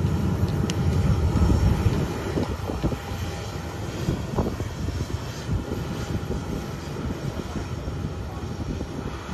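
Twin jet engines of a Boeing 737 airliner taxiing at low power: a steady low rumble with a faint high whine, loudest in the first couple of seconds.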